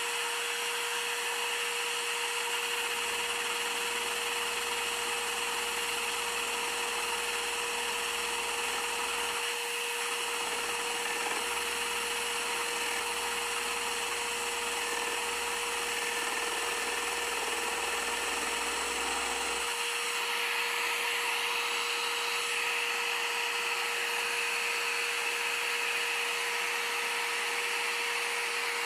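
Electric scroll saw running steadily with a constant hum, its reciprocating blade cutting through a block of wood. A lower rumble under it drops out briefly about ten seconds in and again about twenty seconds in, while the saw keeps running.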